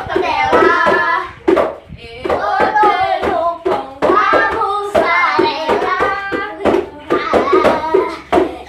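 Boys singing a parody song over their own hand drumming on a plastic bucket, with sharp knocks between the sung lines.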